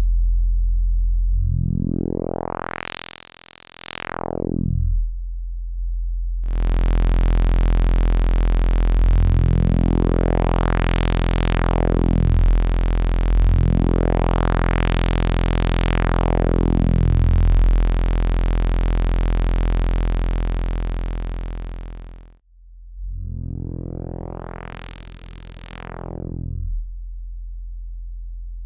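A low, buzzy synthesizer note played through a CubuSynth Dual CS-20 voltage-controlled filter, an MS-20-style filter. The filter cutoff sweeps up and back down four times, so the tone brightens to a resonant peak and then darkens again. Through the middle stretch a bright hiss sits on top of the note and stops suddenly.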